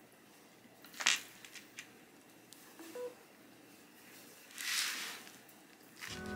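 Quiet handling of a phone on a Samsung SmartThings Station wireless charging pad: a sharp click about a second in and a few light ticks, then a short soft two-note chime about three seconds in as the phone starts wireless charging, and a brief rustle near five seconds. Music begins at the very end.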